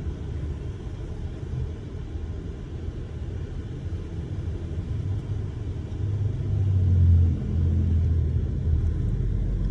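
Car heard from inside the cabin: a low, steady rumble that swells louder for a second or two past the middle, then settles.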